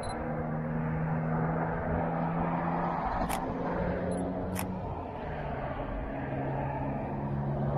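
Steady low drone of a motor vehicle engine running, its pitch shifting slightly, with two sharp camera shutter clicks about a second and a half apart near the middle.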